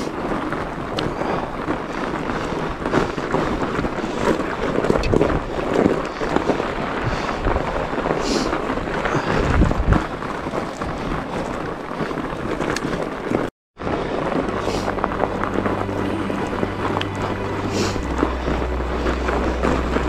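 Wind buffeting the microphone over the rattle and tyre noise of a fat bike riding through snow. After a brief cut about two-thirds of the way in, background music with low held notes comes in under the riding noise.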